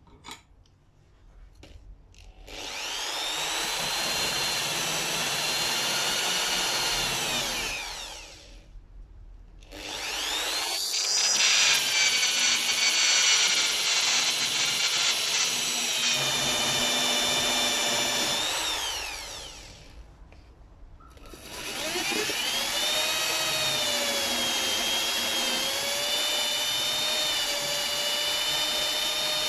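Electric drill spinning a cup brush against the rusty steel of end-cutting pincers held in a vise, scrubbing off rust. It runs in three spells of several seconds, its whine falling in pitch as it winds down before each short pause.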